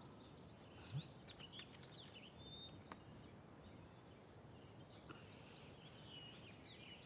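Near silence with faint bird chirps in the background, and one soft low thud about a second in.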